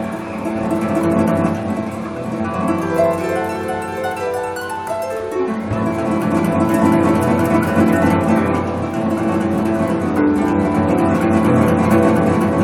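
Instrumental music on a plucked string instrument: quick runs of notes over lower bass notes, the bass line shifting about six seconds in.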